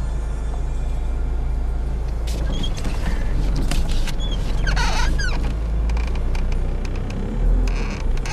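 1998 Ford Escort SE's four-cylinder engine running with a steady low rumble, heard from inside the cabin as the car is driven slowly in reverse. A few short, high gliding squeaks come through in the middle.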